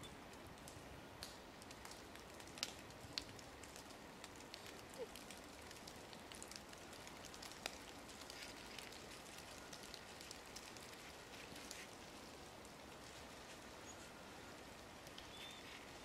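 Near-silent outdoor ambience with faint scattered small clicks and ticks, a few slightly louder about three seconds in, and a faint brief high note near the end.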